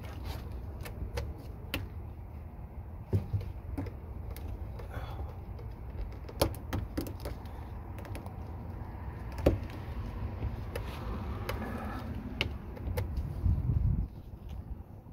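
Irregular clicks and knocks of hard plastic parts being handled as a push-lock fitting on a fuel pump module is worked into place, over a low steady rumble.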